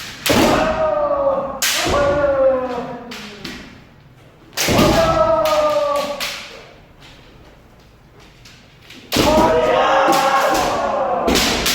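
Kendo practice: bamboo shinai strikes cracking sharply on armour, each with a long drawn-out kiai shout. The strikes and shouts come in three bouts: at the start, about four and a half seconds in, and about nine seconds in.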